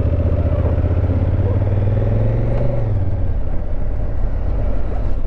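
2019 Honda Africa Twin CRF1000L's parallel-twin engine running steadily as the bike rides along, the engine note easing off about three seconds in.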